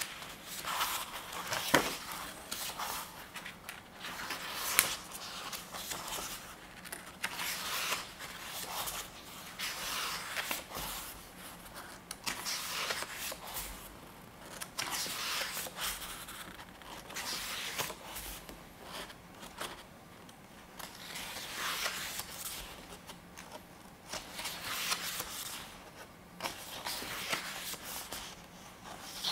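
Paper pages of a softcover photobook being turned and smoothed by hand: repeated rustling swishes and soft scrapes of paper, with a few sharp ticks in the first few seconds.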